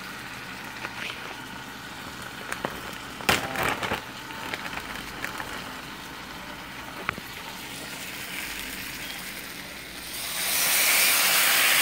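Onions frying in butter in a pan, a steady sizzle, with a few sharp clicks and knocks about three to four seconds in. About ten seconds in a much louder steady hiss starts and keeps on.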